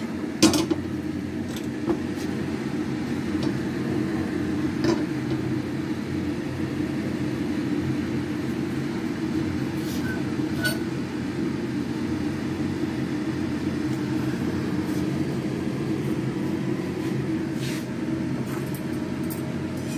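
Steady low hum of a kitchen fan or appliance motor, with a few light clicks and taps from the pan on the gas stove.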